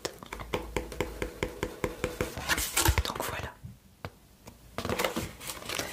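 A large folded paper leaflet being unfolded and handled: crinkling, rustling paper with many small crackles, pausing for about a second a little past halfway.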